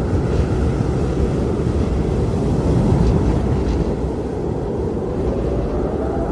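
Blizzard wind blowing hard and steadily with a deep low rumble, and a whistling howl that rises in pitch near the end.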